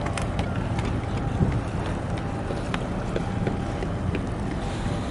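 Wind blowing across the microphone over a low, steady rumble, with a few scattered light clicks.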